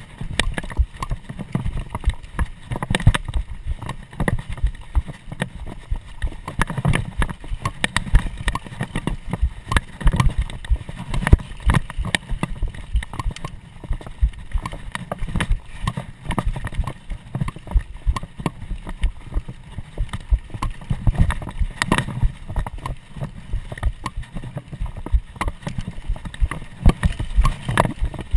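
Mountain bike ridden fast over a dirt forest trail: a constant run of irregular knocks and rattles as it jolts over bumps, over a steady low rumble of tyres and wind.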